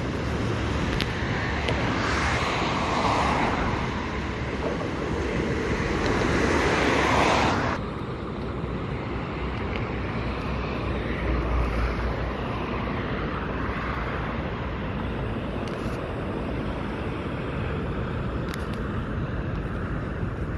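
Steady motorway traffic noise with wind on the microphone. A louder rushing noise swells over the first several seconds and stops abruptly about eight seconds in.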